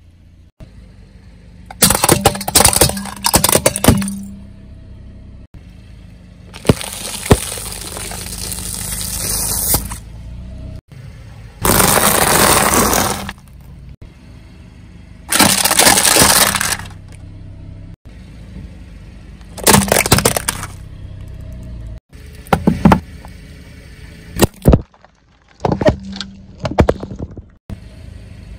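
A car tyre crushing objects one after another: clusters of sharp cracks and pops, and several long fizzing hisses of a second or more, as from soda cans bursting and spraying.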